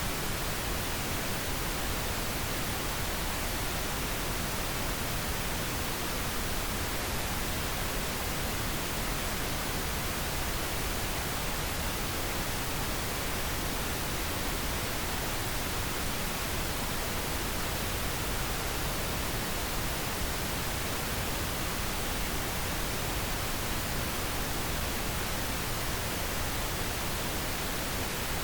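Steady, unchanging pink noise: an even hiss spread across all pitches, with no tones, gaps or events, played as a sleep aid.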